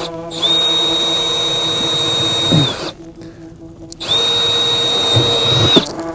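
Power drill drilling a hole, running in two bursts, each spinning up to speed and winding down: the first about two and a half seconds, the second a little under two.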